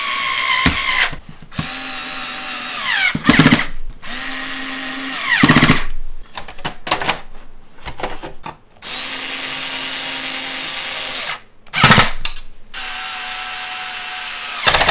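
Cordless drill-driver running in about five short runs of a steady whine, driving the screws that fix a hard-disk bay back into a desktop PC case. Three short, louder, harsher bursts stand out among the runs.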